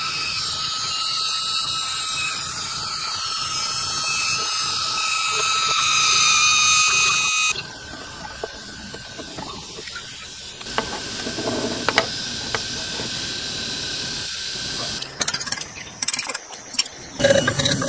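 A power tool's motor running with a steady high-pitched whine and hiss, stopping abruptly about seven and a half seconds in. A quieter steady whine follows, then a run of knocks and clatter near the end.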